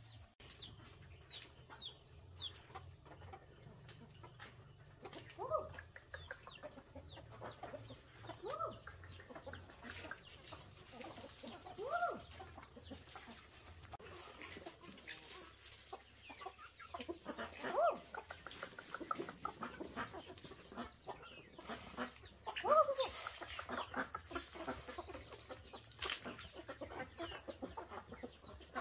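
Chickens clucking, with drawn-out calls that rise and fall every few seconds, and thin high chirps in the first few seconds.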